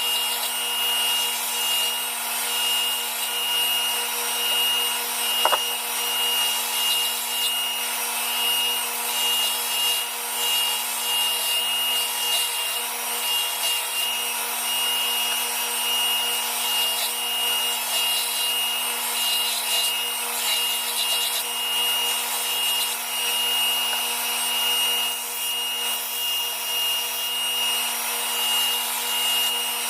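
Power sander running steadily with a constant whine, grinding against the steel of a forged knife blade with a rasping rub. A single sharp click comes about five and a half seconds in.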